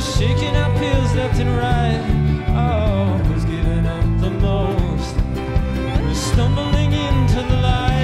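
Live band playing an instrumental passage, led by a bowed violin whose melody slides between notes over a steady bass and drum groove.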